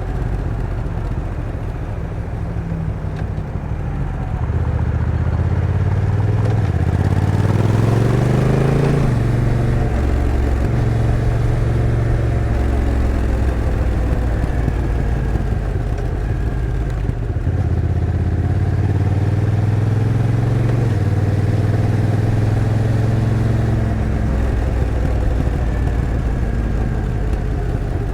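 Honda NT1100's 1,084 cc parallel-twin engine under way. The engine note climbs steeply about eight seconds in, then drops in steps as the dual-clutch transmission changes gear. It settles at steady cruising revs, with a few more rises and falls later on.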